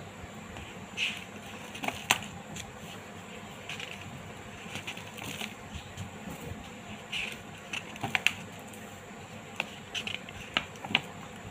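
Pages of a paper drawing book being turned by hand: irregular short paper rustles and sharp clicks, with a cluster of crisper clicks a little past the middle and again near the end.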